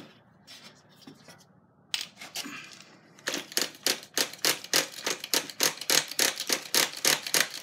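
Small nitro RC engine being turned over with quick, repeated pulls of its pull start while priming, a rapid run of short sharp zips about three to four a second after one lone sharp sound. The engine does not fire and the fuel does not prime, which the owner puts down to an air leak.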